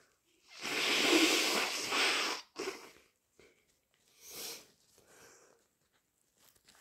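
A person with a bad cold blowing their congested nose hard for about two seconds, then a short snort, followed by two fainter snuffles a couple of seconds later.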